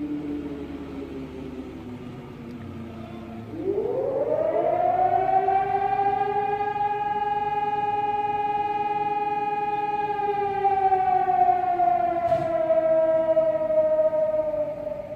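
Civil defense siren winding down to a low pitch, then winding up quickly to a steady high wail that holds for several seconds before slowly falling again.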